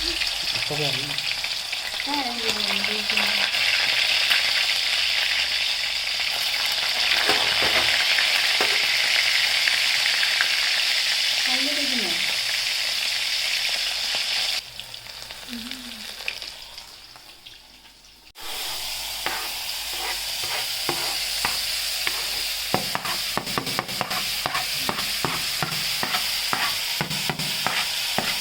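Chicken pieces sizzling as they fry in hot oil in a pan. The sizzle fades off about halfway through, then returns abruptly, with quick clicking spatula strokes against the pan in the last few seconds.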